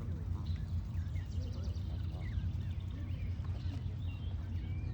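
Canada goose goslings peeping in short scattered calls, over a steady low background rumble and some distant voices.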